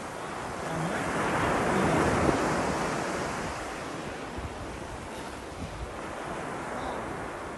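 Sea waves washing onto the shore, one wave swelling to a peak about two seconds in and then easing off, with wind buffeting the microphone.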